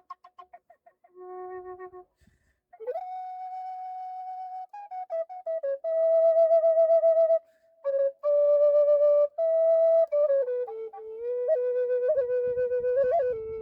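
Native American-style alternating drone flute in A minor, 440 Hz tuning, played as a slow melody of held notes that mostly step downward. A lower drone note sounds beneath the melody for a stretch in the middle. The notes flutter near the start and flick briefly upward near the end.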